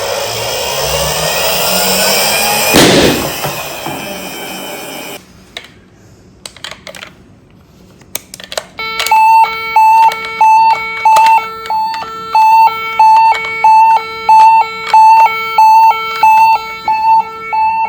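A loud, noisy stretch with rising tones ends in a sharp bang about three seconds in, followed by a few clicks. From about nine seconds, a toy emergency vehicle's electronic siren sounds a steady high-low two-tone pattern.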